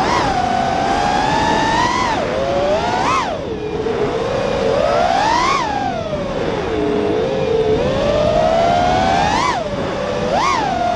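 FPV quadcopter's motors and propellers whining, recorded on board. The pitch climbs sharply and falls back again and again as the throttle is punched and eased: near the start, about three seconds in, about five and a half seconds in, and twice near the end.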